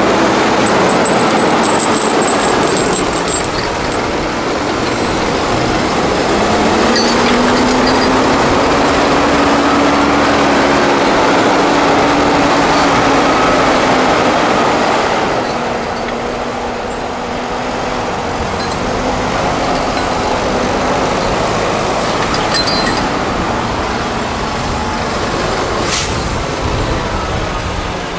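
Heavy tractor diesel engines working under load, pulling a deep plough through clay: a steady dense engine drone whose pitch rises slightly about six seconds in. It drops in level about halfway through, and there is a single sharp click near the end.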